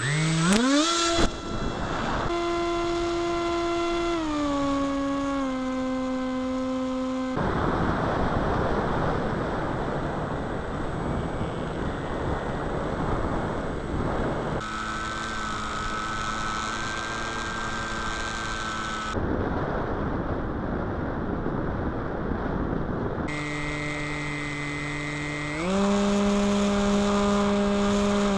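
RC plane's motor and propeller heard from the onboard camera, a whine that steps up and down in pitch with the throttle and holds steady between changes. Some stretches are instead a loud wind rush with no whine, and the sound changes abruptly several times.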